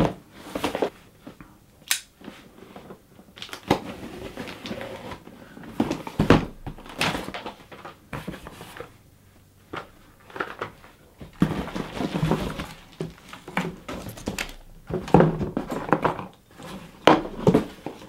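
Opening and handling a delivered package by hand: irregular knocks, clicks and thumps with bursts of rustling packaging.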